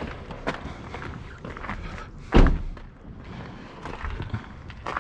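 One loud, dull thump about halfway through, among lighter knocks and footsteps.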